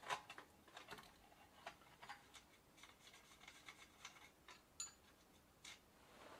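Faint, irregular metallic clicks and light scraping of a tool working at a bicycle front-wheel hub, loosening the axle fastenings.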